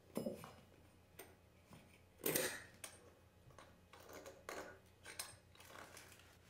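Faint metallic clinks and scrapes of a chrome trim plate being slid down a half-inch copper supply pipe and seated on a tile floor, a few separate light knocks, the loudest about two seconds in.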